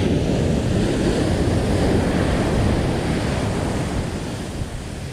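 Ocean surf breaking and washing up a sandy beach, with wind buffeting the microphone; the rush eases off gradually in the last couple of seconds.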